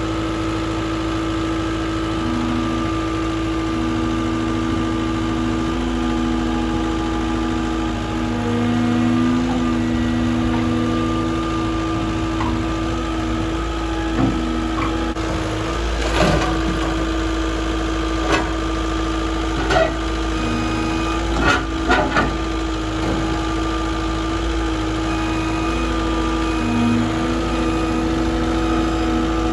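A heavy-equipment engine running steadily, its speed shifting a little now and then. About halfway through comes a cluster of short, sharp knocks.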